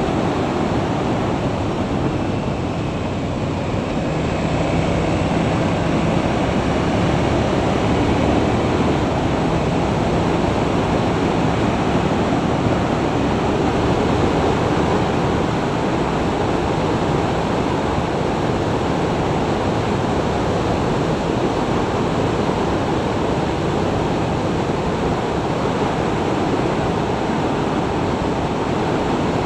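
Wind noise on an action camera's microphone aboard a motorcycle at highway speed: a loud, steady rush with no let-up.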